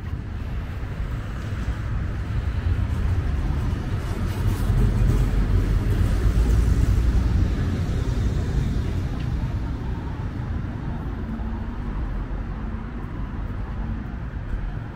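Tram passing close by: a low rumble that swells to its loudest about halfway through, then eases off.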